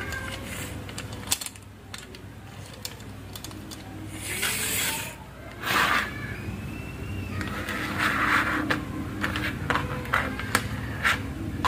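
Plastic toy vehicles handled and pushed across a wooden tabletop: wheels rolling and scraping, with many short clicks and knocks from plastic parts and glass marbles, over a steady low hum.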